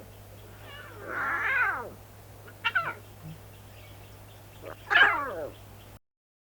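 A cat meowing three times: a long drawn-out call about a second in, a short one partway through, and a falling call about five seconds in, over a faint low hum. The sound cuts out abruptly near the end.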